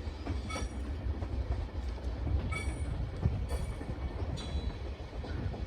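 JR Shikoku 8600 series electric train running along the track: a steady low rumble with a few sharp wheel clicks over the rail joints.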